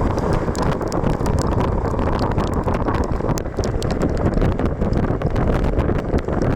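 Wind rushing over the microphone of a moving Suzuki V-Strom 1050XT motorcycle, with many short, sharp ticks scattered through it.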